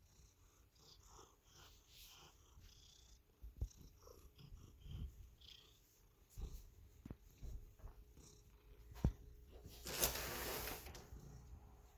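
Domestic cat purring close to the microphone, a low steady rumble, with a few sharp knocks and a brief burst of rustling noise about ten seconds in.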